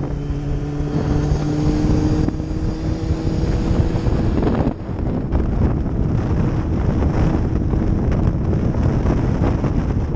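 Sport motorcycle engine running under way, heard through heavy wind rush on the microphone. Its pitch climbs slowly over the first few seconds, dips briefly just before five seconds in, then holds steady.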